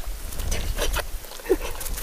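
English Springer Spaniel licking at a man's face and neck, with short, irregular wet clicks.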